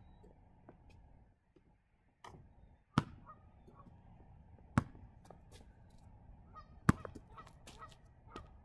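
Basketball bouncing on an outdoor concrete court: three sharp bounces about two seconds apart, with lighter taps and sneaker scuffs between them. Faint honking bird calls sound in the background.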